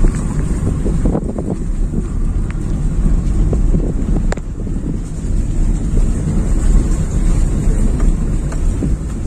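Wind buffeting the microphone over the steady low rumble of a moving vehicle, with a single sharp click about four seconds in.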